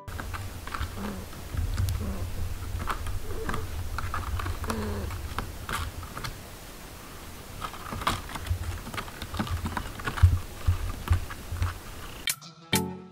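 Baby monkey sucking milk from a bottle nipple: a run of soft, irregular wet clicks and smacks over a steady low rumble.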